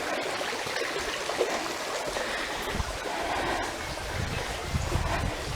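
A stream running steadily, a constant rushing of water, with some low rumbling in the second half.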